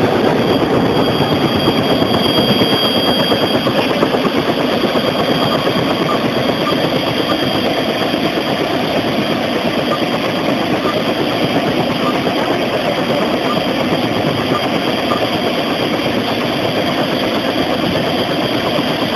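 Steady, loud engine noise with no clear rhythm, and a faint high whine during the first few seconds.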